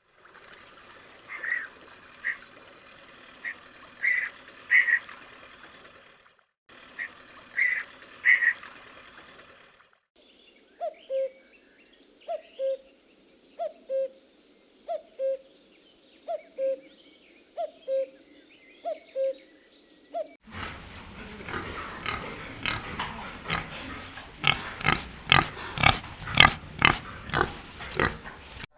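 Calls from several different animals in turn. First come scattered high calls over a steady background. About ten seconds in, a short falling call repeats about every 1.2 s. From about twenty seconds in, a loud, rapid run of sharp noisy sounds follows.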